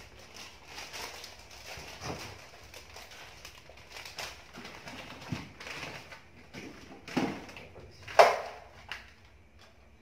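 Plastic-wrapped food packs rustling and knocking as they are handled and stacked into a refrigerator's freezer compartment. A louder thump comes about eight seconds in.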